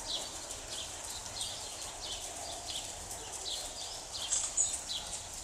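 Ridden horses walking on the sand footing of an arena: an uneven run of soft hoof footfalls.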